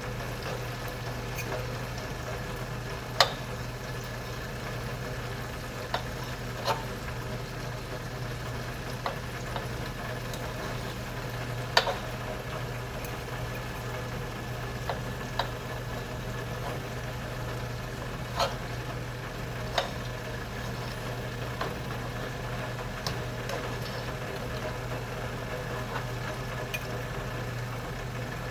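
Pan sizzling over a steady low kitchen hum, with a few sharp clicks and clinks of utensils scattered through it; the loudest come about 3 seconds and about 12 seconds in.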